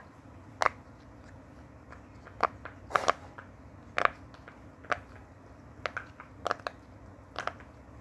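Bubbles of a red silicone pop-it fidget toy being pressed one by one on its 'fun side', a string of about a dozen sharp pops at an uneven pace.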